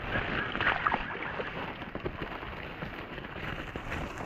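Legs wading through shallow water, with irregular sloshing and splashing, busiest in the first second.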